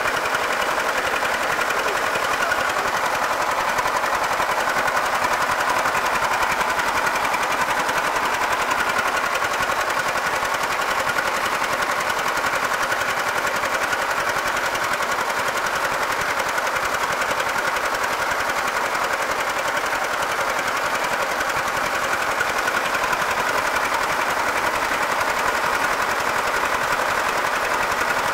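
An engine running steadily, a fast even chatter that does not change or pause.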